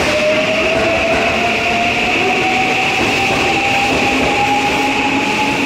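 Electric train pulling away from the platform, its traction motors whining in a tone that rises steadily in pitch as it speeds up, then cuts off near the end. Steady rumbling and hiss of the moving train lie under it.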